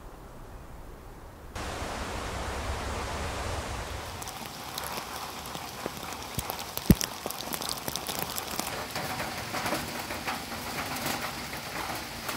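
Steady rain falling on forest leaves and wet ground, with many separate drop ticks. It gets louder about a second and a half in, and one sharper drip knock comes about seven seconds in.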